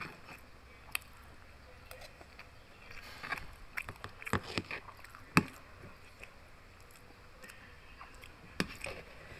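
Close-up eating sounds: a metal spoon and fork clicking and scraping in a plastic food container, and chewing of crispy pork belly with rice. The clicks come scattered, most of them bunched in the middle, the sharpest about five seconds in and another near the end.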